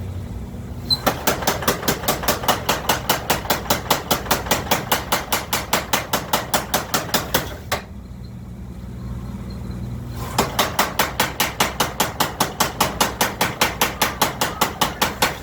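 Mechanical trip hammer (power hammer) pounding in two rapid, even runs of about six blows a second, with its drive motor humming low in the short pause between them. The hammer is drawing out a hot railroad spike.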